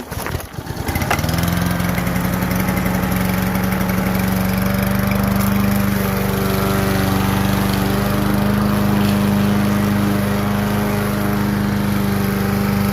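Kohler Courage XT-7 173cc overhead-valve engine on a push mower, pull-started: it catches within about a second and then runs steadily at a constant speed.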